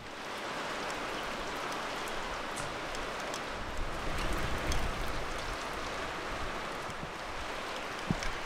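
Steady rain falling on a catamaran's deck: an even hiss sprinkled with sharp drop ticks, with one louder tap near the end.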